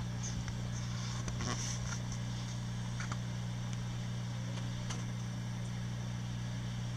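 Steady low electrical hum of a running reef aquarium's pumps and fans, with a few faint clicks.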